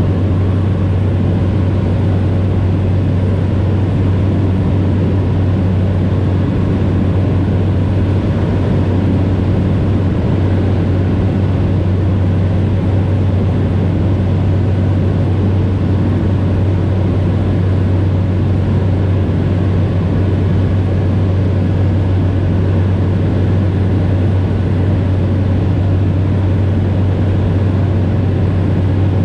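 Cessna 208B Grand Caravan's single turboprop engine and propeller running steadily in flight, a constant drone with a strong low hum over an even rushing noise.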